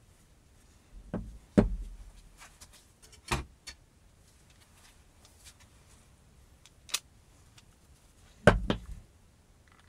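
Knocks and clunks of a metal hand drill and its parts being handled and set down on a hard worktop: two knocks about a second in, the second the loudest, a sharp tap a little after, a lone click, and a double knock near the end.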